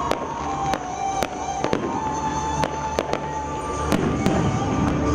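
Fireworks going off in a string of about ten sharp, irregular cracks, over music playing in the background.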